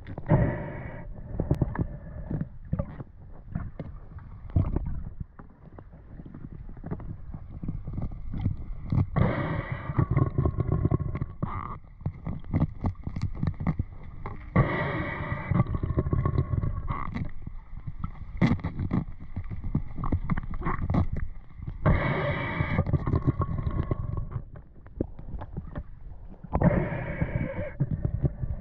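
Water sloshing and gurgling around a diver's camera just under the surface, with short handling knocks and a few louder rushing bursts of a second or two, spaced several seconds apart.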